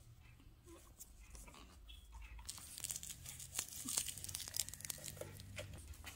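Crinkling, scratchy rustle of a blue knitted plush toy being handled and tugged by Shih Tzu puppies, full of small crackles and clicks. It starts a couple of seconds in and eases off near the end.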